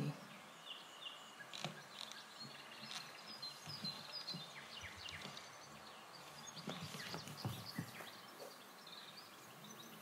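Faint woodland ambience: scattered short, high bird chirps over a low background hiss.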